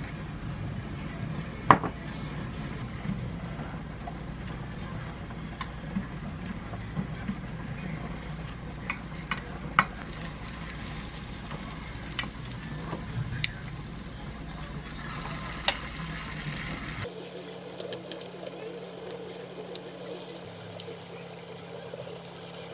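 Beaten egg sizzling in an oiled square omelette pan on a gas stove, with occasional sharp clicks of chopsticks and a wooden spatula against the pan as the egg is rolled into a rolled omelette.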